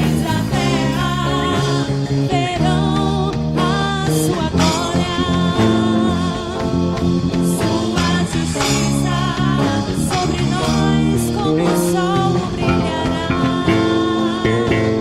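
Worship band playing a passage of the song with guitar over the full band, and some singing in the mix.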